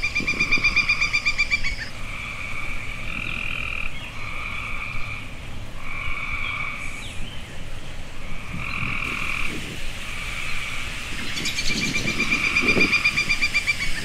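Frogs calling: short croaks repeated every second or two, with a longer rapid rattling trill at the start and again near the end, over a low rumble of wind or distant traffic.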